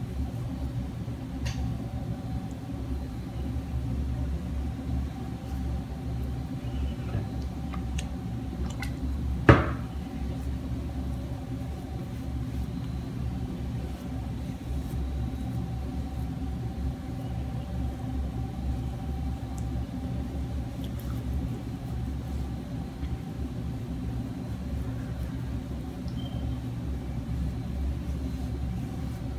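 Steady low hum with a fainter higher tone above it, and one sharp click about nine and a half seconds in.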